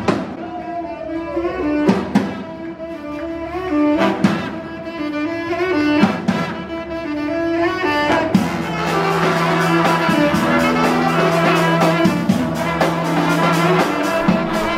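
Live brass band of trumpet, trombone, saxophones and snare drum playing an upbeat tune, with a strong hit about every two seconds. About eight seconds in, the music switches to a held low note under busier, faster playing.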